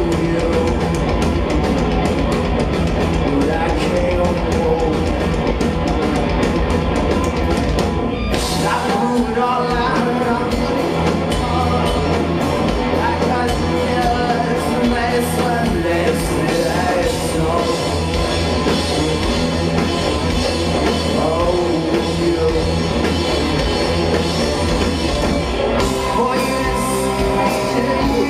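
Live rock band playing loud, with electric guitars, bass, drum kit and sung vocals. The low end thins out near the end.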